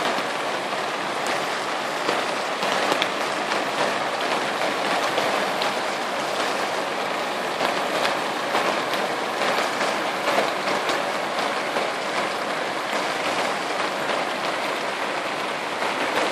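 Heavy rain falling in a dense, steady patter, sprinkled throughout with sharp ticks of drops striking close by.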